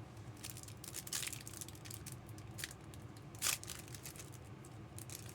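Trading card pack wrappers rustling and crinkling as packs are handled and torn open, in short scattered bursts with one sharper rip about three and a half seconds in.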